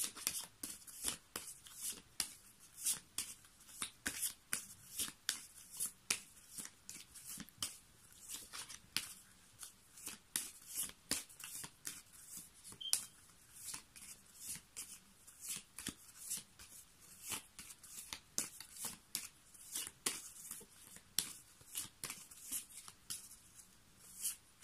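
A deck of oracle cards shuffled overhand by hand: a steady run of quiet, crisp card clicks and slaps, a few each second.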